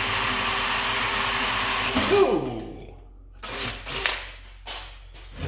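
Cordless drill boring a hole through steel flat bar with a steady whine, winding down with a falling pitch about two seconds in, followed by a few short, sharp sounds.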